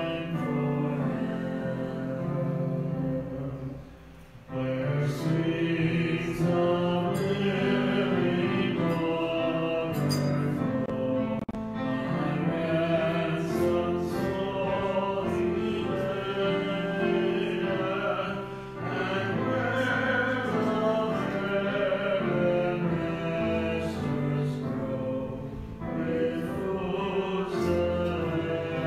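An offertory hymn being sung in sustained, phrased lines, with a brief break between phrases about four seconds in.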